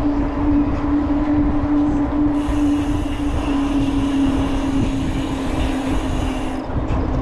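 Wind buffeting an action camera's microphone while cycling at about 13–14 mph on asphalt, a steady rumble with a steady low hum through it. A higher hiss joins in about two seconds in and stops shortly before the end.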